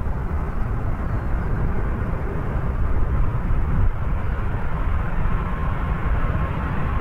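Airbus A330 airliner on approach to land, its jet engines giving a steady low rumble.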